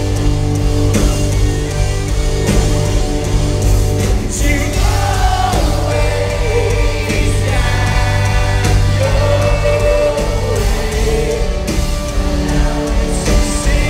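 Live rock band playing, with sustained bass and guitar chords and a singing voice that comes in about four seconds in, heard through a loud arena mix.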